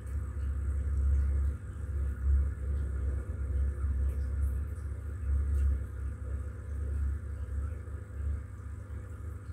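Aquarium equipment running: a low, uneven rumble with a faint steady hum above it.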